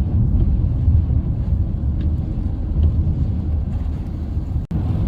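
Steady low rumble of a car on the move, with a momentary break near the end.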